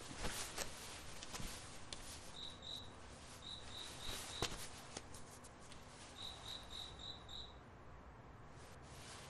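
A cricket chirping faintly in short runs of four or five quick high chirps, with pauses of about a second between runs. A few soft clicks sound in the first half.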